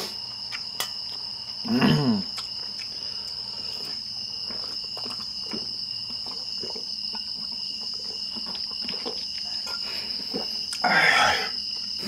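Crickets chirping in a steady, unbroken high trill. Small clicks and gulps come as water is drunk from metal bowls, with a short falling voice sound about two seconds in and a louder breathy vocal burst near the end.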